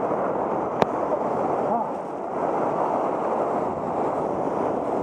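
Whitewater rapids rushing steadily and splashing against an inflatable raft, with one sharp click about a second in.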